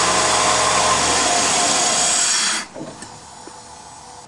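The 5.0L Vortec V8 of a 1997 GMC K1500 pickup running with a loud rushing hiss, then dying abruptly about two and a half seconds in. It starts but won't stay running because the vacuum brake booster hose was left disconnected, a large vacuum leak.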